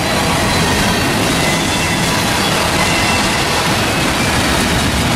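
Double-stack intermodal well cars rolling past on steel wheels, a steady rumble and hiss mixed with heavy rain, with a faint high steady squeal from the wheels.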